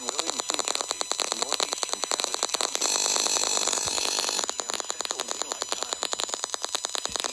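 AM radio reception full of static: dense, rapid crackling over a steady hiss. About three seconds in, a louder, denser stretch of noise lasts about a second and a half.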